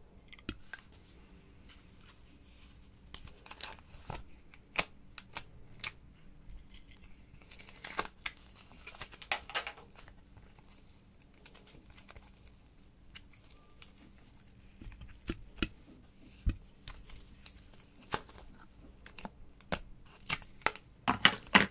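Hands handling foam decorations, glitter and small plastic pieces in glass trays: scattered crinkles, rustles and light clicks, with a louder run of clicks and crackling near the end as a plastic cosmetic container is handled.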